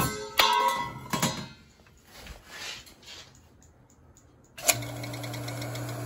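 A few clicks and knocks in the first second and a half, then about three-quarters of the way in a Bell & Gossett circulator pump starts with a click and runs with a steady electric hum. Its new coupling and freshly oiled bearing assembly turn without trouble.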